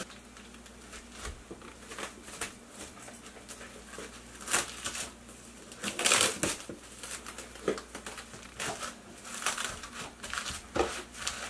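Plastic cling wrap crinkling as it is pulled and wrapped around a cake, in irregular crackles, loudest about four and a half and six seconds in.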